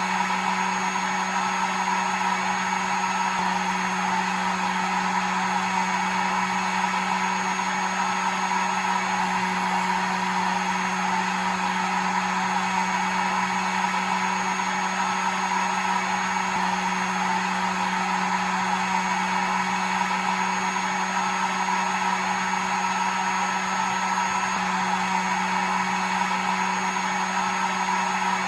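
Hair dryer running steadily: a constant rushing airflow with a steady motor hum underneath.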